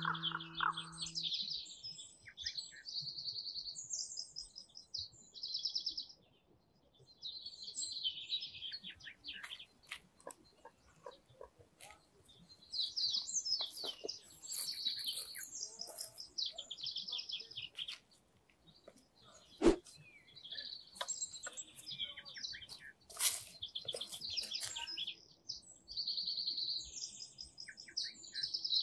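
Songbirds singing in a spring woodland: short trilled phrases repeated again and again with pauses between them, with scattered rustles and clicks, and one sharp knock about two-thirds of the way through.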